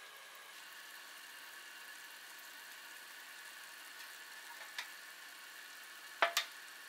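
A steady bubbling hiss from asparagus simmering in a shallow layer of water in a frying pan. Metal tongs click once against the pan just under five seconds in, then clack twice in quick succession near the end as the spears are lifted out onto a metal tray.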